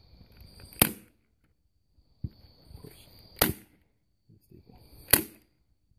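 Staple gun firing three times, about two and a half seconds apart, each a sharp single snap, driving staples through the convertible top fabric into the edge of its frame.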